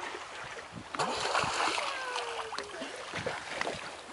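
Sea water splashing and rushing along the side of a moving boat, with a sudden louder rush of water about a second in that eases off over the next second or two.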